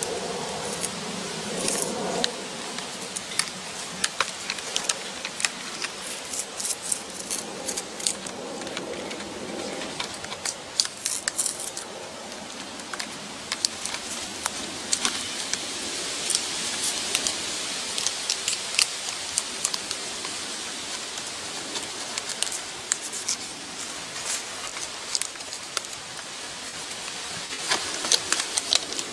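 Knife blade of a Leatherman Wave multitool cutting and scoring birch bark: irregular sharp scratches and clicks as the blade works through the bark, over a steady hiss.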